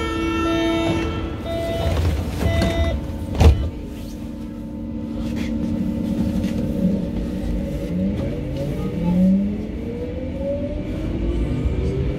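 Berlin U-Bahn H-series train (H01) heard from inside the car: the door-closing warning beeps pulse, the sliding door shuts with a single thud about three and a half seconds in, then the traction motors whine in rising tones as the train accelerates out of the station.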